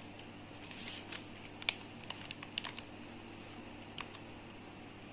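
Small plastic bag crinkling and clicking as a large chocolate cookie is pushed out of it and bitten into, with one sharper click a little under two seconds in.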